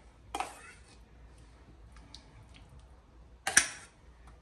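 Kitchen utensil knocking against a dish: a few faint clicks, then one sharp clink about three and a half seconds in.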